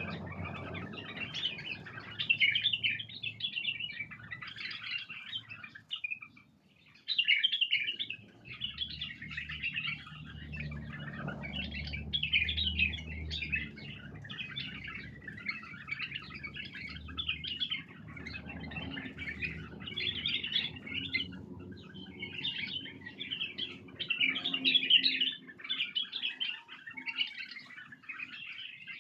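White-eared bulbuls calling: a dense, nearly continuous run of quick chirps, broken by short pauses about six and eight seconds in. A faint low hum sits beneath the calls for a stretch in the middle.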